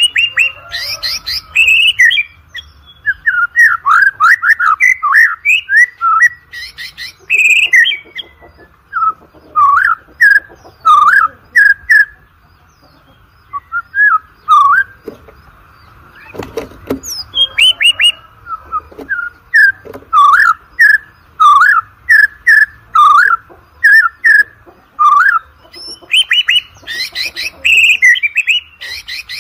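White-rumped shama (murai batu) singing a fast, varied song of whistled phrases, rapid trills and sharp chattering notes, easing into a short lull about halfway through before picking up again.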